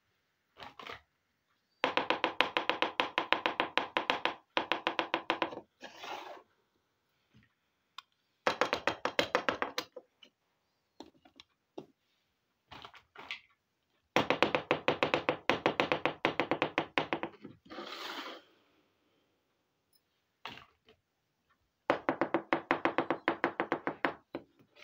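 Rapid trains of small plastic clicks and taps, about ten a second, in five bursts of one to three seconds, from miniature plastic toy kitchenware being handled and tapped on a surface. A few brief rustles fall between the bursts.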